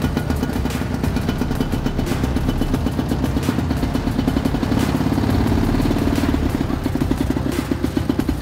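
Small engine of a 1964 Jiger 152 six-wheeled amphibious ATV running under way, with a rapid, even pulse; it picks up briefly about five seconds in.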